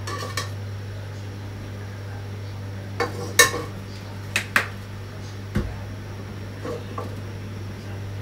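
Scattered clinks and knocks of kitchenware as a plastic cooking-oil bottle is handled at a wok, about eight sharp separate ones, over a steady low hum.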